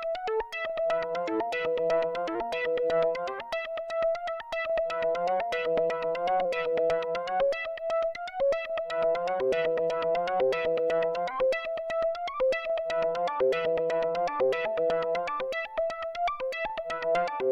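Arturia Modular V3 software synthesizer (a Moog modular emulation) playing a repeating phrase of pitched notes over a fast, even clicking pulse. The phrase repeats about every two seconds.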